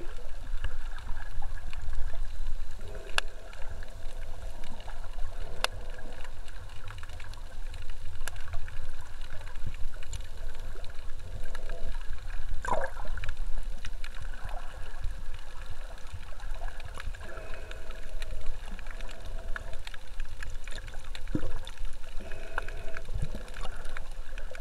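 Water noise heard through a submerged camera: a steady low rumble with a fluttering wash of water sound and a few sharp clicks.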